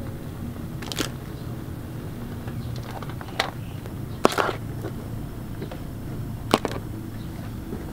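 Cooked mud crabs dropped into a woven bamboo basket, their hard shells hitting it and each other with about four sharp clacks spread over several seconds, the loudest about four seconds in, over a steady low hum.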